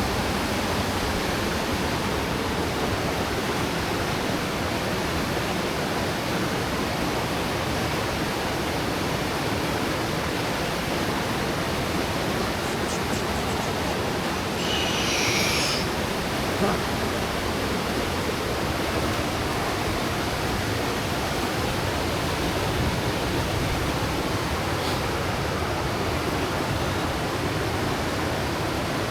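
Steady rush of a waterfall and fast-flowing river water, with a brief higher hiss about halfway through and a small click just after.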